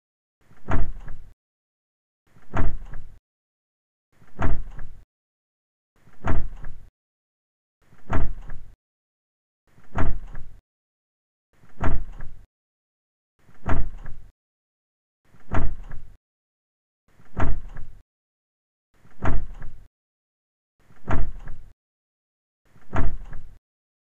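Car door being opened by its exterior handle, the same short latch-and-door sound repeated as a loop about every two seconds. Each repeat starts sharply and has a smaller second hit just after, with dead silence between repeats.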